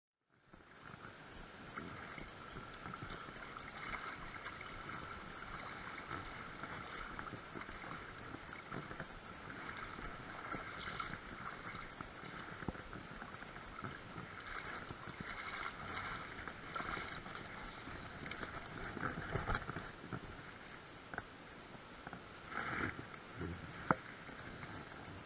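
Fast-flowing river rushing steadily, cutting in abruptly just after the start, with a few sharp knocks and rustles near the end.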